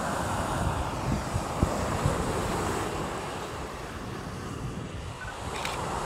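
Ocean surf washing onto a sandy beach, a steady rushing noise, with wind buffeting the microphone in low gusty rumbles.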